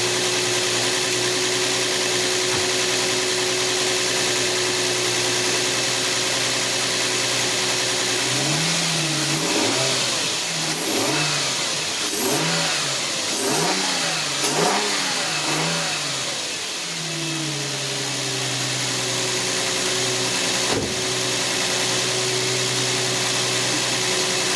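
2004 Infiniti G35's 3.5-litre VQ35DE V6, breathing through a freshly installed aftermarket cold air intake, idling steadily, then blipped with the throttle about five times in quick succession in the middle, each rev rising and falling, before settling back to a steady idle.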